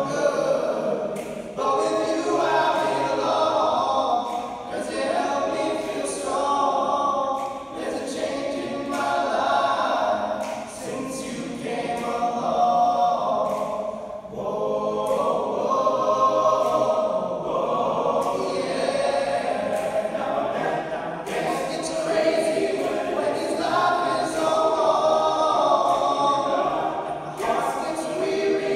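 All-male a cappella group singing, many voices together without instruments, in phrases with brief breaks between them.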